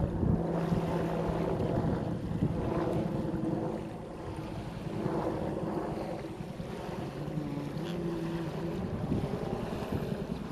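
Wind buffeting the microphone over small waves lapping at the shore, with the steady hum of a distant engine whose pitch shifts slightly a few times.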